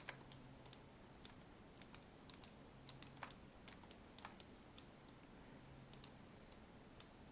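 Faint, scattered clicks of a computer keyboard: single key presses at irregular intervals, a few each second at most, over a quiet room background.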